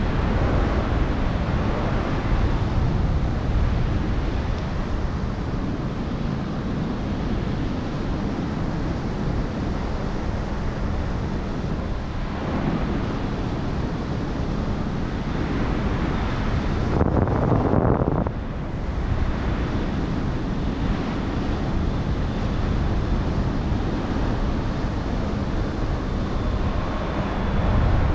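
Wind rushing over the microphone of a paraglider in flight: a steady buffeting rush of air, with a louder surge lasting about a second past the middle.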